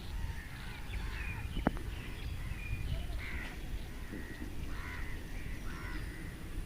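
Birds calling several times in short harsh calls, the loudest about five seconds in, over a steady low background rumble.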